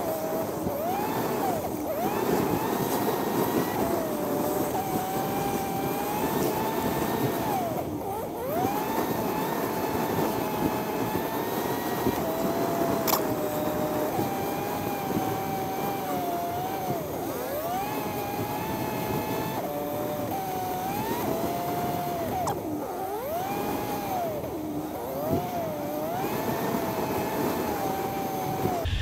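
Suzuki GSF1200 Bandit's inline-four engine running at low speed, its pitch repeatedly rising and falling with the throttle, over a steady rush of wind and road noise.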